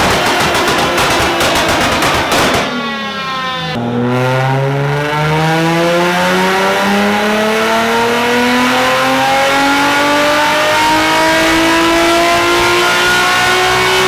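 Infiniti G35's 3.5-litre V6 on a chassis dyno, loud through test pipes and a custom straight-pipe exhaust: high revs fall away about three seconds in, then a full-throttle pull with the engine note climbing steadily for about ten seconds as the car is run up for a power reading.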